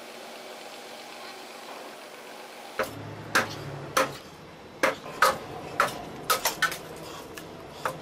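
Large wood lathe turning a rough, out-of-round log: the turning tool strikes its uneven surface in about ten sharp knocks at uneven intervals, roughly two a second, over the low hum of the lathe's drive. These follow nearly three seconds of steady background noise.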